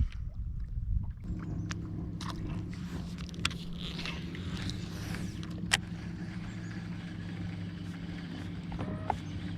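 A boat motor comes on about a second in and hums steadily, with a few sharp clicks and knocks over it.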